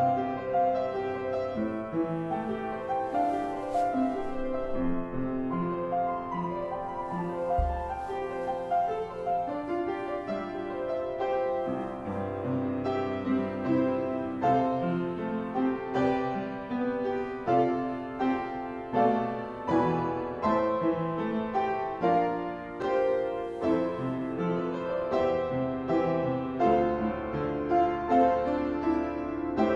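Solo keyboard instrumental music: a melody of frequent notes over held low bass notes.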